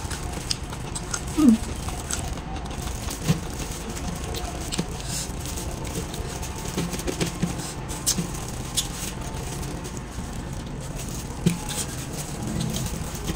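A person eating with gloved fingers: scattered small clicks and smacks of chewing and lip smacking, with the crinkle of a plastic glove as fish is picked off the bones on a metal tray.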